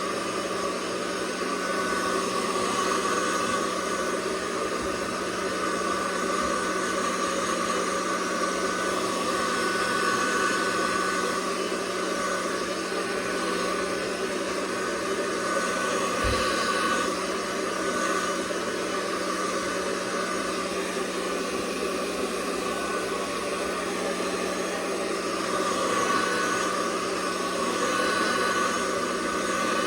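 Handheld hair dryer running steadily on its hot setting, a continuous blowing rush with a faint steady motor hum.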